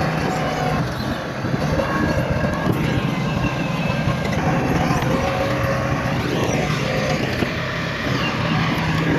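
Diesel engines of heavy earthmoving machinery running steadily.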